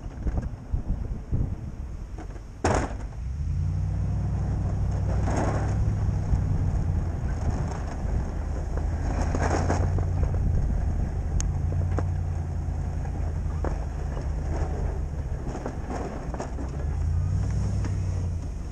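Ford F-250 pickup's engine running steadily as the truck drives and plows snow, its pitch shifting a few times with engine speed. Wind buffets the microphone at first, and there is one sharp knock about three seconds in.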